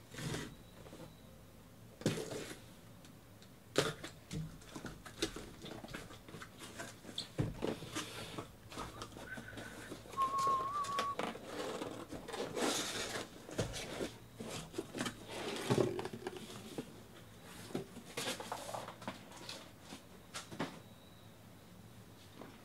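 Cardboard shipping case being cut open with a utility knife and handled. The tape slices, cardboard flaps scrape and rustle, and the cardboard-wrapped card boxes knock and slide as they are pulled out and stacked, with irregular knocks throughout.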